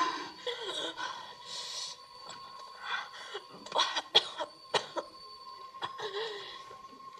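Young woman coughing and gasping in short, irregular fits, with a few sharp coughs bunched together about two thirds of the way through; she is sick with heroin withdrawal.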